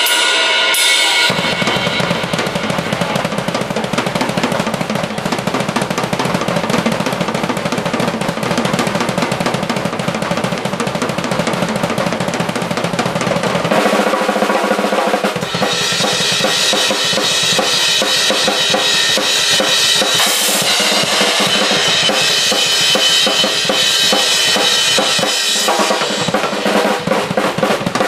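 Acoustic drum kit solo played live: fast rolls across the drums over a busy bass drum, then cymbals crashing and ringing through the middle stretch, before the drums come back to the fore near the end.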